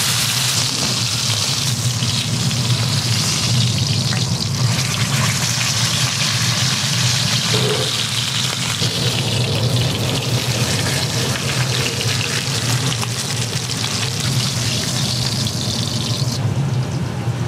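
A rolled joint of meat sizzling as it is seared in hot oil in a cast-iron skillet: a loud, steady hiss with a low hum beneath it. The hiss drops off sharply shortly before the end.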